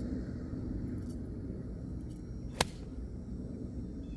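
Golf iron striking a ball off turf: one sharp crack about two and a half seconds in, over a low steady background rumble.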